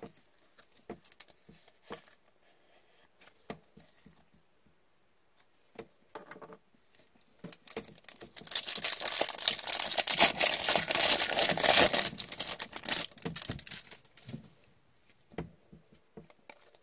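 Soft taps and clicks of trading cards and a rigid plastic top loader being handled. About eight seconds in, the foil wrapper of a hockey card pack is torn open and crinkled loudly for several seconds, then a few more light card clicks follow.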